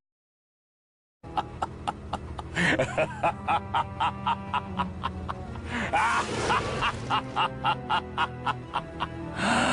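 A short piece of music starts after about a second of silence: sharp hits keep a steady beat, about three a second, over a low sustained drone, with a few gliding, call-like sounds laid over it.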